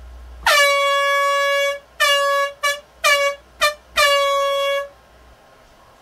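Air horn blown in a prank: a long blast of about a second, a quick run of short toots, then a final long blast, each on one steady pitch.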